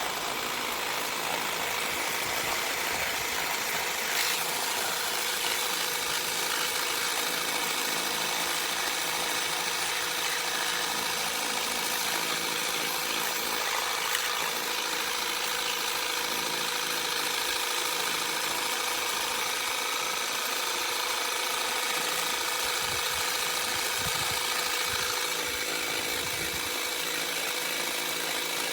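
Battery-powered Mernglow 300 W cordless pressure washer running steadily under the trigger: the pump motor's whine over the hiss of the water jet spraying.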